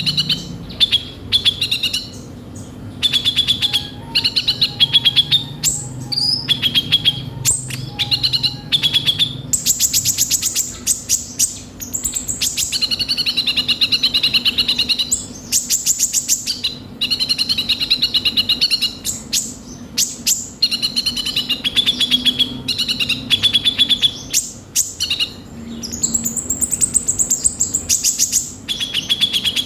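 Van Hasselt's sunbird (the 'kolibri ninja' of Indonesian bird-keepers) singing nearly without pause: rapid high chattering trills and rough, harsh notes, broken by a few short gaps. A faint steady low hum runs underneath.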